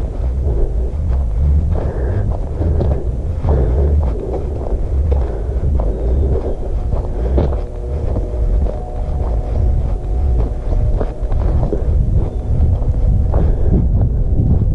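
Wind buffeting the camera microphone with a steady low rumble, over footsteps on a dirt trail at walking pace, about two a second. A faint steady hum of several pitches joins for a few seconds in the middle.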